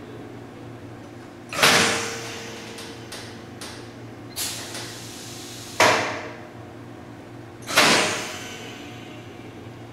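Clamping mechanism of a longitudinal seam welder working, with four sharp clacks that each die away over about half a second, the last as the foot pedal is pressed, and a few faint clicks between, over a steady low machine hum.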